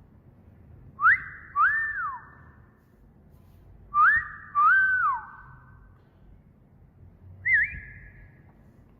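A wolf whistle, repeated: a quick rising note, then a second note that rises, holds and falls. It sounds about a second in and again about four seconds in, each note trailing an echo, and near the end comes a single short rising whistle.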